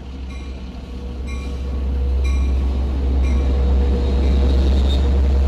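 EMD DE30AC diesel-electric locomotive pulling into the station, its engine rumble growing steadily louder as it approaches, with a bell ringing about once a second. A brief high squeal comes near the end.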